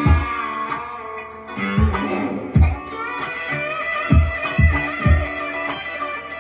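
Electric guitar played in a funky chicken-pickin' style over a backing track with a steady beat and low thumps.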